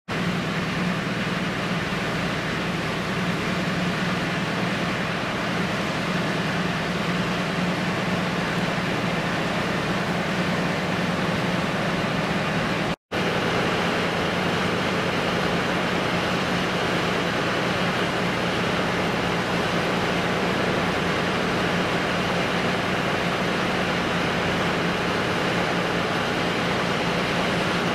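Coastal cargo ship's diesel engine running with a steady low drone over an even hiss. The sound drops out for a moment about halfway through, and the drone is weaker after it.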